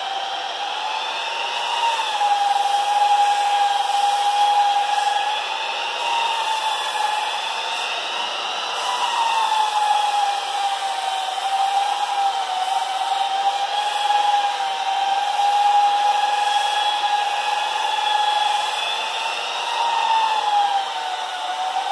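Electric sander running steadily, sanding the hard skin of a bare heel, with a motor whine that wavers slightly in pitch.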